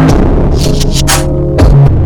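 Electronic music with sustained synth bass notes and a drum beat.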